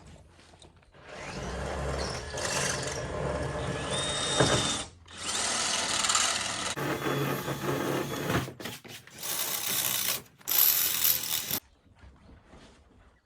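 Power drill running in about four bursts, drilling out the rivets that hold the caravan's window and wall lining.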